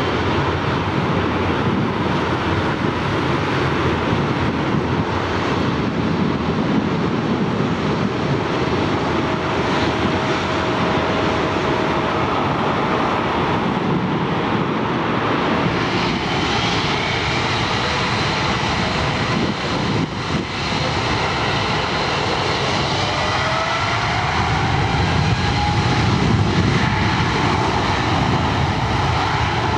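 Jet turbofan engines of a Boeing 777 airliner running at taxi power, a steady loud roar and whine. In the last few seconds a whine rises in pitch and the sound gets slightly louder as the engines spool up.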